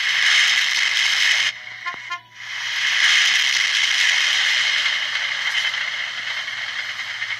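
A buzzy horn sounding twice: a short blast, then after a brief gap a long one that slowly fades.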